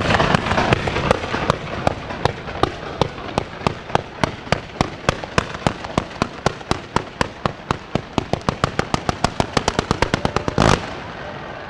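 Fireworks display: a ground-fired battery launching comets and stars upward in rapid succession. Sharp reports come several times a second and quicken toward the end, then one longer, louder blast sounds near the end.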